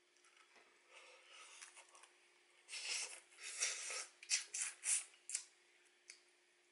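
Close-miked eating of soy-sauce marinated rock crab: a run of wet sucking and chewing sounds as the meat is drawn from the shell, loudest about three to five seconds in.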